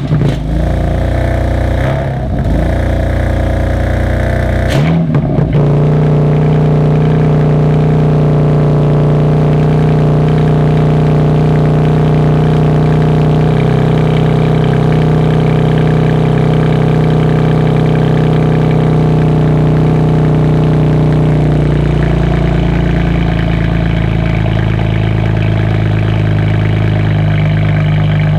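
A petrol engine starts up, runs unevenly and higher for about five seconds, then settles into a steady idle.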